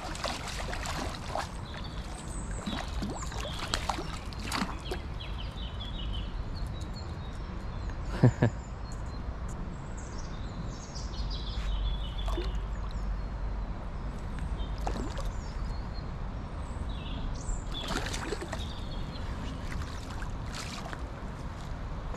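A small hooked pike splashing and swirling at the surface as it is played and reeled in, in irregular short splashes, with one louder brief sound about eight seconds in. Small birds chirp now and then.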